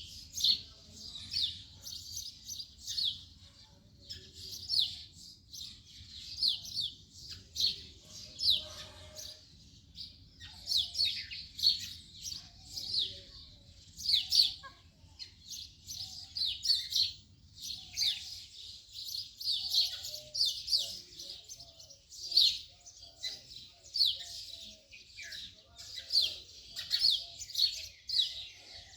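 House sparrows chirping, a steady run of short, repeated chirps several times a second.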